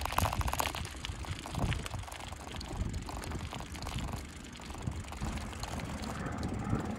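Riding a bicycle on tarmac: wind rumbling on the microphone over the tyre noise, with some rattling in the first second.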